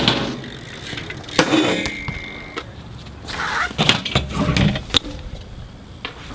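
BMX bike riding on pavement: tyres rolling, with a few sharp knocks from landings and bike impacts.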